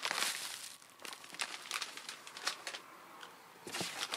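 Plastic snack bags crinkling as they are handled, in irregular crackles with a denser rustle near the end.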